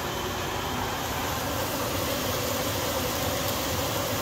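Frozen mixed vegetables sizzling in a skillet on the stove, a steady hiss.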